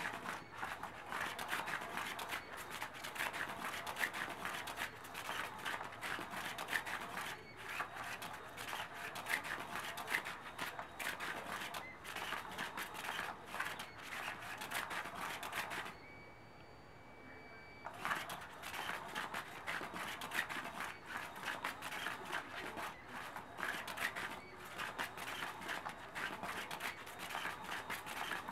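Cat's Meow battery-powered cat toy running: its wand sweeps around under the nylon cover with a continuous scratchy rustle full of quick clicks. It stops for about two seconds a little past halfway, then starts again.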